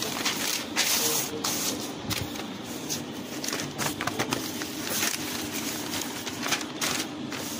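Sheets of newspaper rustling and crinkling in uneven bursts as they are handled and spread out.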